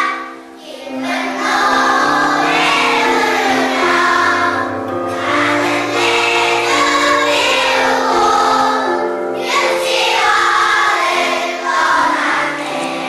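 A group of young children singing a song in unison over instrumental accompaniment, in phrases with short breaks between them.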